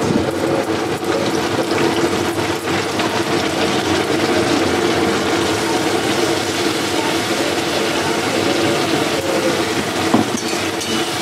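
Hot oil sizzling in a kadai as a wet ginger, garlic, chili and black-pepper paste is spooned in on top of fried onions, over a steady hum.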